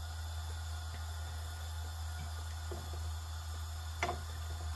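A steady low hum, then about four seconds in a single sharp clack as a nylon slotted spatula scrapes into a nonstick frying pan and slides under a toasting burger bun to turn it.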